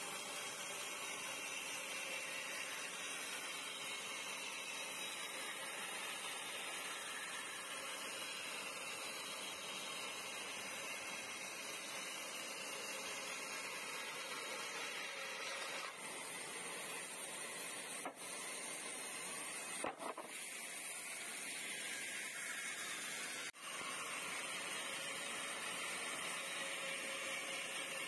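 Old bandsaw blade sawing lengthwise through a thick slab of dry log: a steady hissing whir of blade and motor, broken by a few brief dropouts in the second half.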